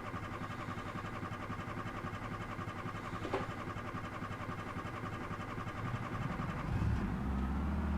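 Starter motor cranking an old car's reluctant engine steadily for several seconds, with no start. About seven seconds in the engine catches and fires up, its sound suddenly fuller and louder.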